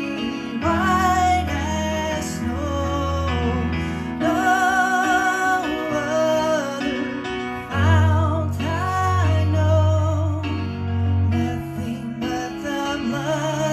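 A woman singing a slow hymn with vibrato on long held notes, accompanied by an electronic keyboard playing sustained chords over a low bass.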